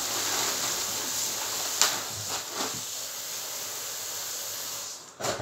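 Kitchen tap running into a sink, a steady hiss of water, with a sharp knock a little under two seconds in. The water stops about five seconds in, followed by a couple of knocks.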